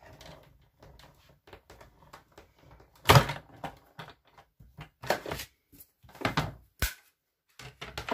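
Stampin' Cut & Emboss Machine, hand-cranked, drawing its plates and a Timeworn 3D embossing folder through the rollers. Faint ticking at first, then several loud clunks and creaks as the plates press through, the loudest about three seconds in, and a sharp click near the end.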